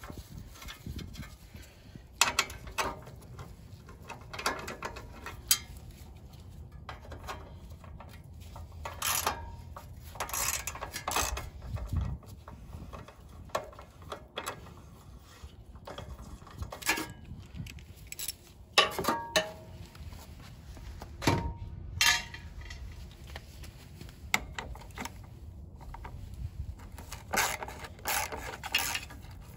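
Scattered metallic clinks, clicks and knocks of a socket wrench and extension working the bolts of a small engine's sheet-metal muffler guard, with a few short ringing taps.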